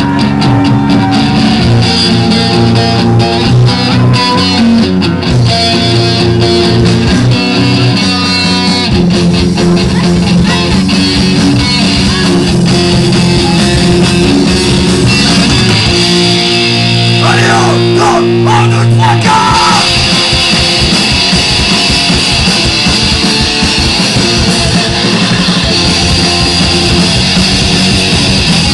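A punk band playing live, loud, with distorted electric guitars and drums, recorded from the crowd.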